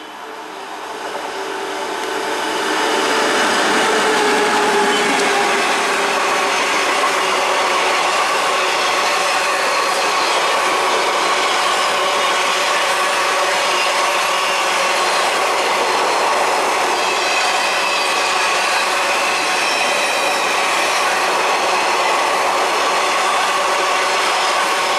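Passenger train hauled by a WAP7 electric locomotive passing at speed, its wheels running on the rails. The noise swells over the first three seconds as the locomotive comes by, then holds steady and loud as the coaches roll past.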